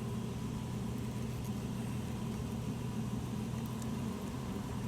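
Steady low mechanical hum, like an engine idling, holding even with no change.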